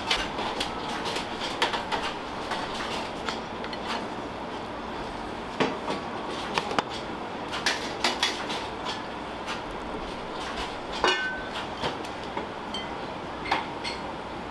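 Restaurant kitchen clatter: metal pans and utensils knock and clink again and again, some strikes ringing briefly, over a steady rushing kitchen noise.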